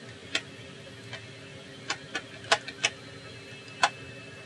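Sharp, irregular clicks and taps, about eight in all, of a screwdriver and small screws working against a laptop's chassis, over a faint steady hum.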